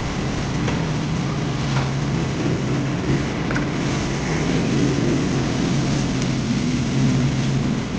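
Steady roar of a commercial kitchen's gas wok burner and extraction, with a low hum and a few light metal clinks, as of a ladle touching the wok.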